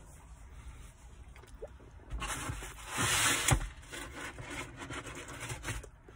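Rubbing, rustling noise of something handled close to the microphone. It starts about two seconds in, swells to its loudest around the middle with one sharp scrape, and dies away near the end.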